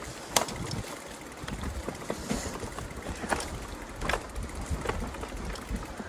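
Yamaha YPJ-TC electric-assist mountain bike going over a rough, rocky trail. There is a steady rumble of tyres and rattling, with a few sharp knocks.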